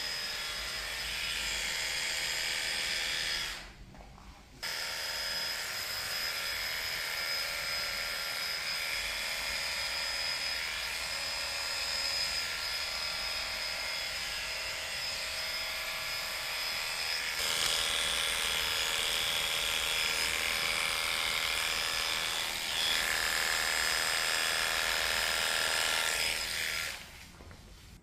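Electric pet hair clippers buzzing steadily as they shave a cat's coat. They cut out briefly about four seconds in, run on with their tone changing twice, and stop shortly before the end.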